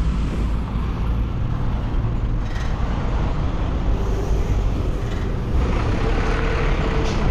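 Road traffic noise: a steady low rumble of motor vehicles running, with a faint held tone rising out of it for a second or two near the end.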